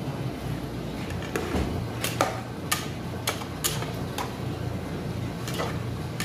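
Metal spatula clicking and scraping against a nonstick frying pan while stirring string beans in sauce: irregular sharp clicks over a steady low hum.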